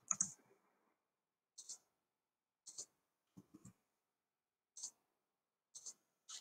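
Faint computer mouse clicks, short pairs of clicks coming about once a second.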